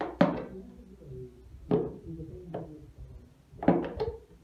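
Sharp knocks on a plastic jar, about five separate hits with the last few bunched close together near the end, each trailing off briefly.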